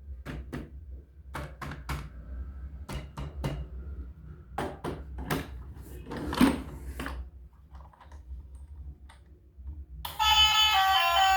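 Irregular clicks and thunks over a steady low hum, the loudest about six seconds in; music starts about ten seconds in.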